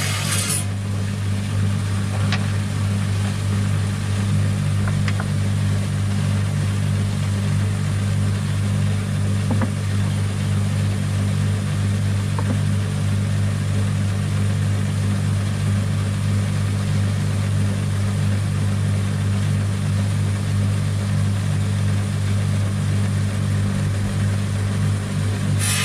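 Electric wet saw's motor running with a steady, loud hum and its blade spinning free. The grinding hiss of stone against the blade stops about half a second in, and a few faint clicks follow.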